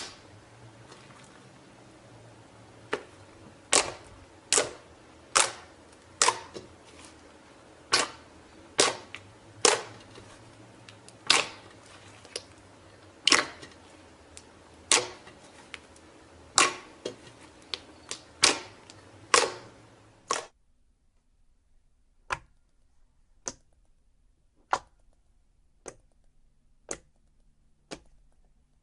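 Slime being squeezed and poked, giving sharp popping clicks of trapped air, irregular and about one a second over a low steady hum. About two-thirds of the way through the hum cuts out abruptly, and smaller, quieter pops carry on at about one a second.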